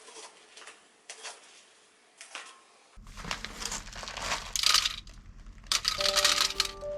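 Crinkling and rustling of something being handled, in loud irregular bursts after a few faint clicks, with music notes coming in near the end.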